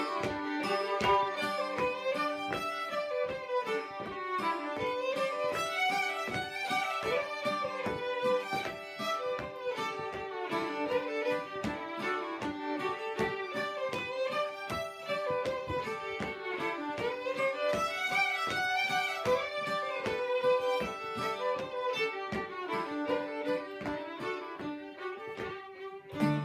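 Two fiddles playing a traditional English West Gallery tune over steadily strummed acoustic guitar chords. The music briefly drops away near the end.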